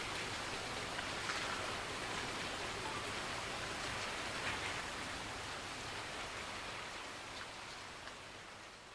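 Steady hiss of outdoor background noise that fades out near the end.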